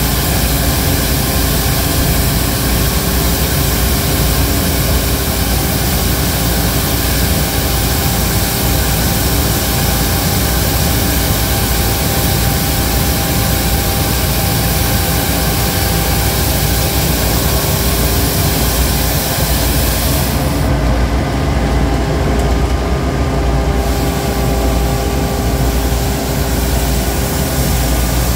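Schmidt Swingo 200+ compact street sweeper running steadily, its diesel engine rumbling under a loud hiss, with its two front side brushes spinning on brick pavers. The high hiss thins out briefly about two-thirds of the way through.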